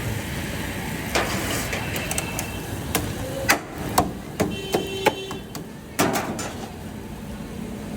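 A series of about eight sharp, irregular knocks or strikes, a few with a brief ringing tone after them, over a steady background of street noise.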